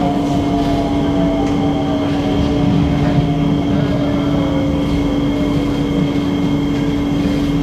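Singapore MRT train running, heard from inside the carriage: a steady hum and running noise, with a motor whine that falls slowly in pitch.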